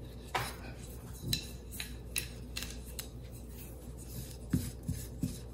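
Wooden rolling pin rolling over dough on a silicone baking mat: soft rubbing with scattered light clicks, and a dull thump near the end.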